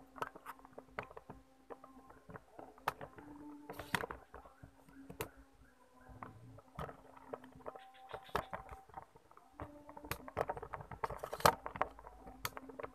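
Irregular crackling and rustling in dry undergrowth, scattered clicks of leaves and twigs being brushed and stepped on, with a few louder snaps. Faint steady tones sit underneath.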